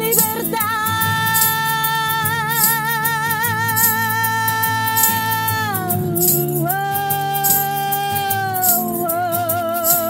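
Female voice holding long wordless sung notes with a wide vibrato, three notes in turn, over steady acoustic band accompaniment. Short rattling hits keep an even beat.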